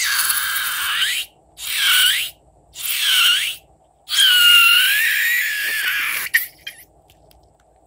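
Air squealing out through the stretched neck of a balloon: four hissing squeals, the pitch dipping and rising in each. The first three last about a second each; the last, starting about four seconds in, is the loudest and runs about two seconds.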